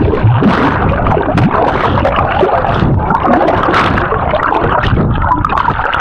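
Water sloshing and splashing right at the microphone as a person swims. The sound is loud and continuous.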